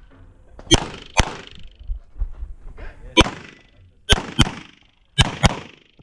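Semi-automatic pistol fired seven times in an IPSC course of fire, mostly in quick pairs about half a second apart: two shots, a single shot, then two more pairs, each shot with a short echo.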